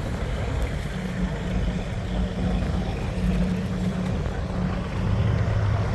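Boat engine running steadily with a low drone over water and wind noise; its pitch drops to a lower hum about five seconds in.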